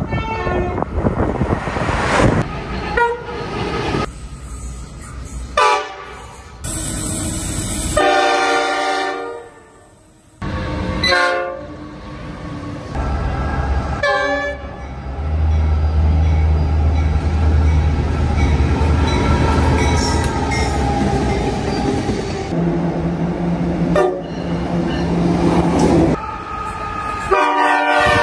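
A run of short clips of trains sounding their horns, joined by abrupt cuts: loud multi-note horn chords, the noise of trains running past on the rails, and in the middle a long stretch of a diesel locomotive's low engine drone as it passes.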